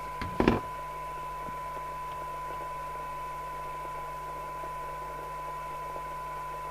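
A steady 1 kHz test tone, the signal generator's modulation received and played through a Midland 76-900 FM CB radio during SINAD receiver alignment, over a background hiss and low hum. A brief sharp knock comes about half a second in.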